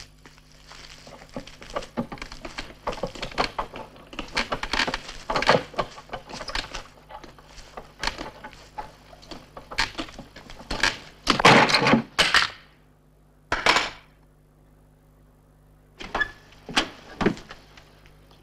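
A trunk being forced open with a screwdriver: a run of knocks, scrapes and rattles at the lock, with a louder flurry about eleven seconds in, then a pause and a few single knocks near the end.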